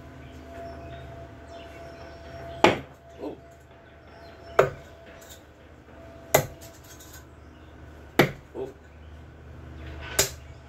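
Thrown steel-tip darts striking a dartboard and the painted wooden wall beside it: five sharp thuds about two seconds apart, most followed by a fainter knock.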